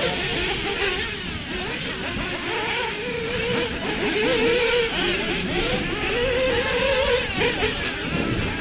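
Several 1/8-scale RC off-road buggies racing together, their motors overlapping and constantly rising and falling in pitch as they accelerate and brake around the track.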